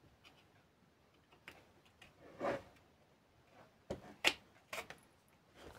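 Light handling noise: a few scattered clicks and knocks as a metal depth-stop rod and the power cord are handled in a hard plastic tool case, the sharpest click about two-thirds of the way through.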